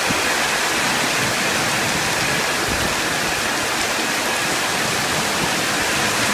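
Heavy rain pouring down in a steady hiss, heard from under a covered shelter.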